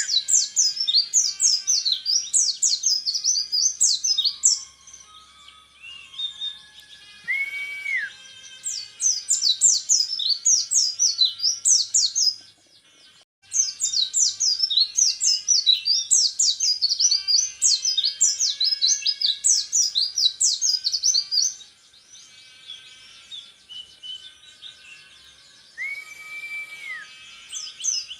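Orange-headed thrush singing in long bursts of rapid, high-pitched notes fired off one after another, with a held whistle twice in the pauses between bursts.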